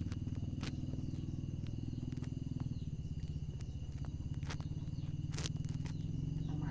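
Wood fire crackling with sharp scattered pops, over a loud, low, rapidly pulsing drone.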